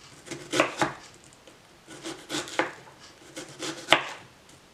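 Kitchen knife dicing red onion on a wooden cutting board: irregular knocks of the blade through the onion onto the board, coming in small clusters, the loudest near the end.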